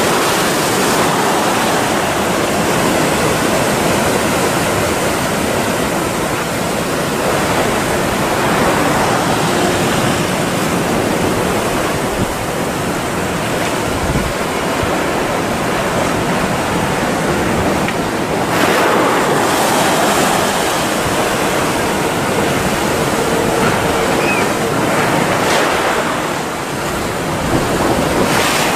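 Breaking ocean waves and surf, a loud steady rush that swells louder about two-thirds of the way through.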